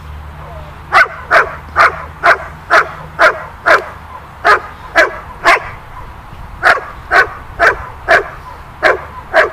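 A young Beauceron bitch barking repeatedly at a decoy in a bite suit, guarding him: about two barks a second in three runs with short pauses, starting about a second in.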